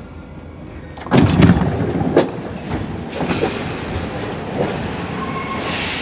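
Paris Métro MF77 train at a station stop. A sudden loud clatter of knocks comes about a second in as the doors open, then a few single knocks as a passenger steps off onto the platform, over the train's steady noise.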